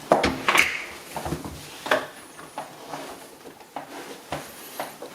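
Scattered knocks and clicks in a small room, loudest in a cluster in the first second and again about two seconds in.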